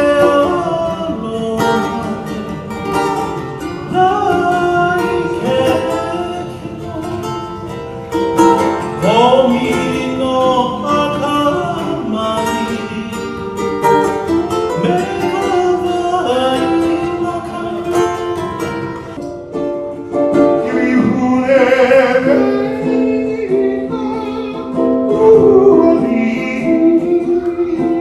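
A song: a voice singing a melody over plucked acoustic strings, guitar or ukulele.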